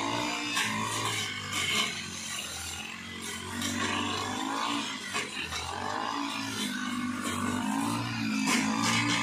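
Petrol brush cutter (string trimmer) engine running steadily, its pitch rising and falling as it is throttled while cutting tall grass, with a few short sharp sounds over it.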